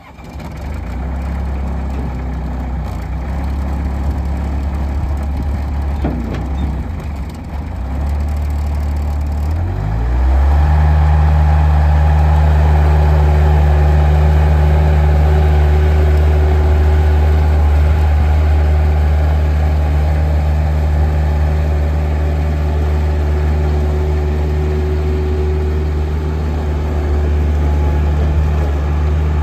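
Bobcat 830 skid steer loader's diesel engine idling, then throttled up about ten seconds in with a short rise in pitch, and held at a higher, louder steady speed.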